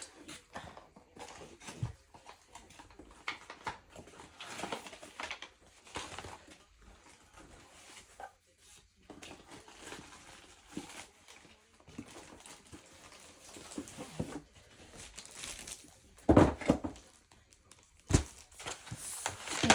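Rustling and crinkling of packaging as a diamond painting kit box is opened and its contents handled, with two loud knocks near the end.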